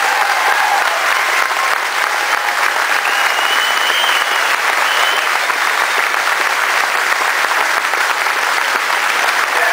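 Large crowd applauding steadily, a dense, even clapping that holds throughout.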